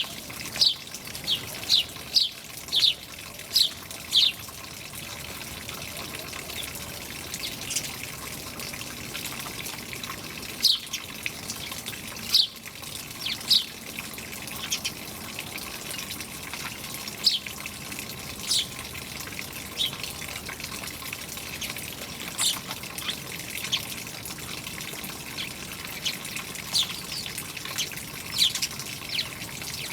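Small birds chirping over steadily running water. The short, high chirps come in a quick run in the first few seconds, then scattered singly and in pairs.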